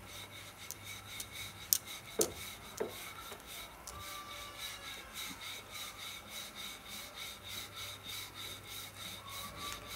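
Wooden rolling pin rolling out paratha dough on a plate: quick, even back-and-forth rubbing strokes, about three a second, with a few sharp knocks around two seconds in.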